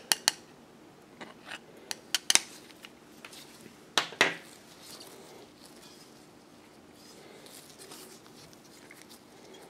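Light clicks and taps of a screwdriver and a walkie-talkie's hard plastic housing being handled, with one louder knock about four seconds in as the housing is set down on a wooden table, then faint rustling of handling.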